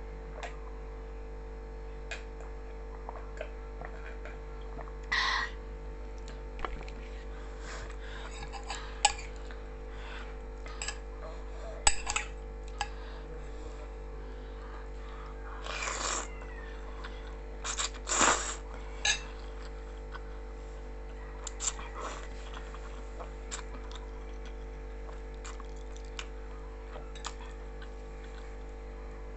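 A person eating black noodles: scattered chewing and slurping with light clicks of utensils against the bowl, and a few louder slurps, over a steady low hum.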